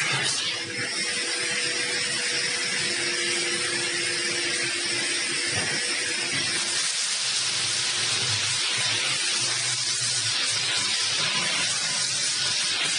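JYT-B hot melt coating machine running, with a steady hiss over a low hum and a faint whine that fades about halfway through.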